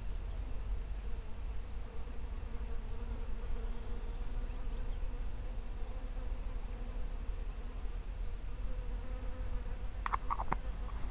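An insect buzzing with a steady, slightly wavering hum over a low rumble. A few short clicks come near the end.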